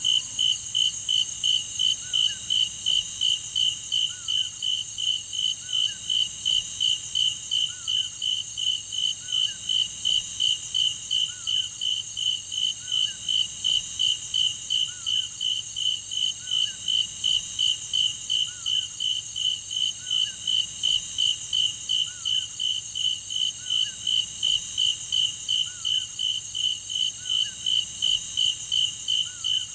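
Cicadas calling in a steady, high buzzing pulse, about three pulses a second without a break. A faint short chirp repeats underneath about every two seconds.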